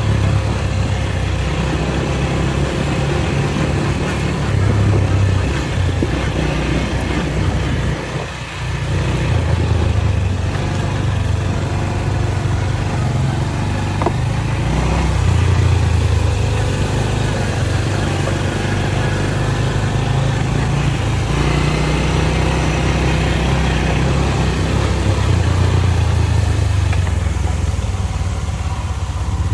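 Four-wheeler (ATV) engine running continuously as it pulls a drag along a dirt trail, its low engine note rising and falling with the throttle.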